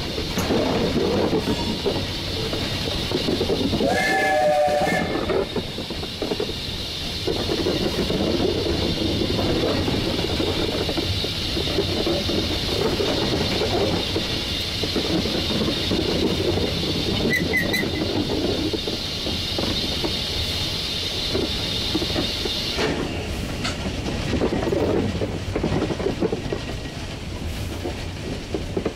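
1943 Davenport steam locomotive heard from its cab while running along the line: a steady rumble and rail clatter with a hiss over it that dies away a few seconds before the end. A brief wavering squeal comes about four seconds in.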